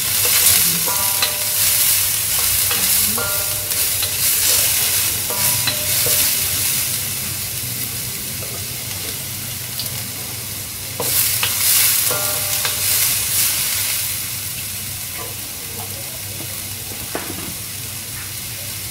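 Sliced onion and garlic sizzling in hot oil in a black wok, stirred and scraped with a spatula. The stirring comes in spells during the first several seconds and again about eleven to fourteen seconds in, with a steadier sizzle between and after.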